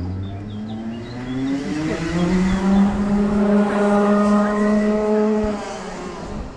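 Racing kart's two-stroke engine revving hard as the kart accelerates: the pitch climbs steeply over the first two seconds or so, holds high and loud, then drops away near the end.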